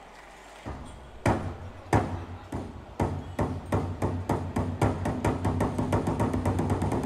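Large red Chinese barrel drum beaten with sticks. A few slow, separate strikes with a low boom under them speed up steadily into a fast roll.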